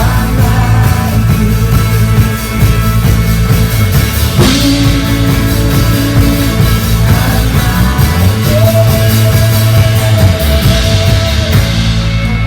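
Band music with a drum kit and bass, with long held notes over them.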